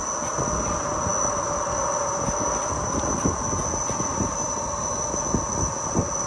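A chassis-shaker rig is jolting a Tesla's suspension, giving a steady high tone and mechanical hum with a run of irregular low knocks. The car is being shaken to listen for a noise from the suspension links and lower control arms.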